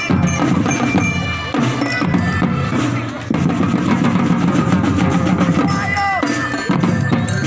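Marching drum band playing a fast rhythm on snare drums, tenor drums and bass drums, with voices from the crowd mixed in.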